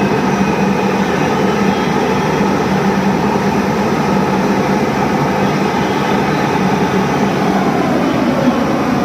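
Excavator's diesel engine running steadily under load, a loud continuous drone with a steady low hum.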